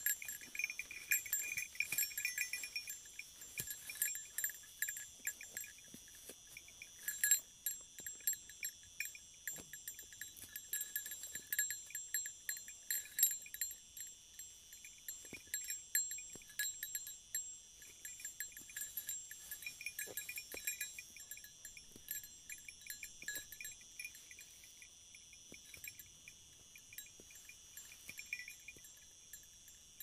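A small metal bell clinking in quick, irregular jangles as the sheep graze and move their heads, over a steady faint high-pitched drone. The clinking is busiest in the first twenty seconds and thins out toward the end.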